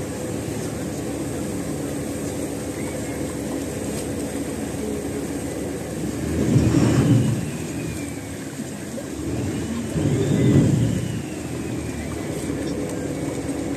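Motor of a Venice water taxi running steadily, with water rushing along the hull. Two louder rumbling swells come through, about six and ten seconds in.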